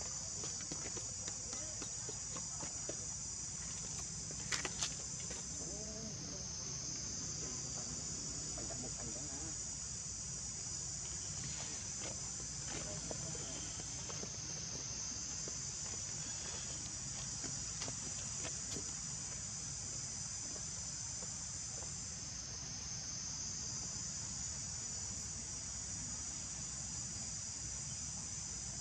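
Steady high-pitched insect chorus, dipping slightly every eight seconds or so, with a couple of brief clicks about four and a half seconds in.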